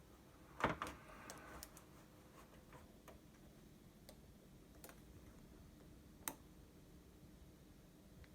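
A quiet room with a few scattered sharp clicks and ticks: the loudest about half a second in, a cluster of faint ones just after, and another clear click about six seconds in.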